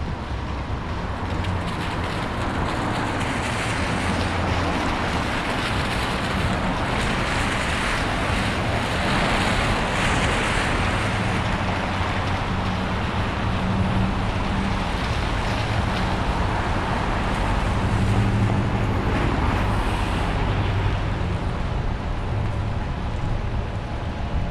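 A car driving on rain-wet city streets: steady road and tyre noise over a low engine hum, swelling a little louder a few times.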